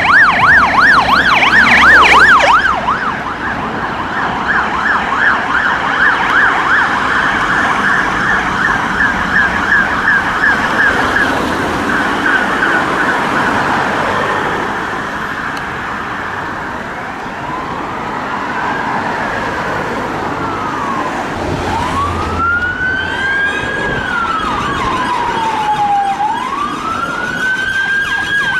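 Emergency vehicle sirens: a fast yelp for the first couple of seconds, a quicker warbling tone that fades away, then a slow wail rising and falling in pitch over the last ten seconds.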